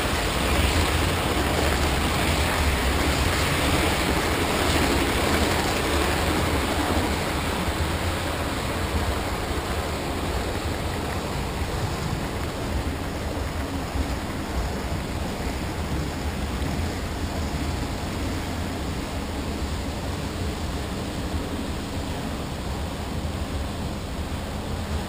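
Model double-stack container train rolling past at close range, its wheels making a steady rumbling rush on the rails that slowly fades as the last cars go by.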